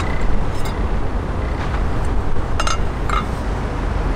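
Chopsticks clinking lightly against a dish, three times, over a steady low background rumble.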